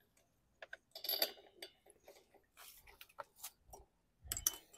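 Socket ratchet clicking and steel tools clinking against a lawn mower engine while its spark plug is being loosened, with a dull knock near the end.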